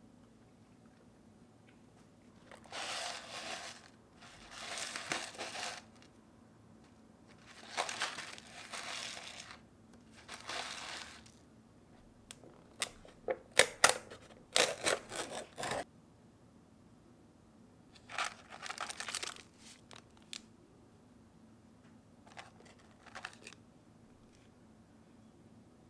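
Crinkling and tearing of packaging, such as an instant-noodle packet being opened, in several bursts of a second or two. There is a quick run of sharp clicks and crackles near the middle.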